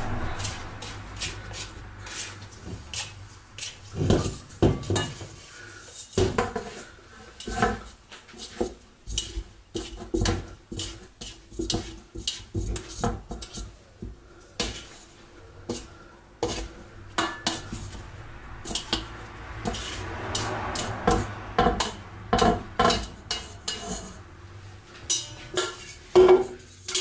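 Stainless steel mixing bowl knocking and scraping in many irregular small clanks as risen bread dough is worked out of it onto the worktop.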